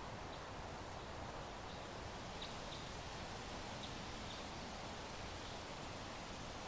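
Soft, steady wind noise, with a few faint, short, high chirps scattered through it.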